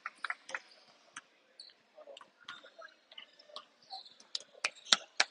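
Basketball game on a gym court: scattered ball bounces and short sneaker squeaks on the hardwood, with the sharpest few near the end.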